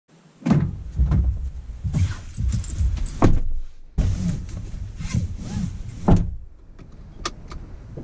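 Thumps, knocks and rustling of people getting into a parked car's front seats and pulling on seatbelts, with a sharp click near the end. The noise drops out briefly just before halfway, then resumes.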